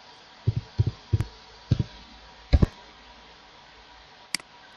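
Computer keyboard keys pressed one at a time, five dull double thuds at an uneven pace over the first three seconds, as a user ID is typed. Near the end, one short sharp mouse click.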